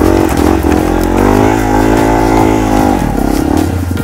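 Small single-cylinder four-stroke dirt bike engine under throttle, revving up and down. The revs dip just after the start, hold for a couple of seconds, then drop off a little after three seconds in.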